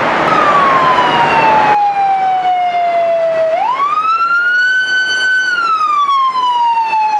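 Emergency vehicle siren wailing: one tone slides slowly down, climbs quickly about three and a half seconds in, holds high for about a second, then slides slowly down again.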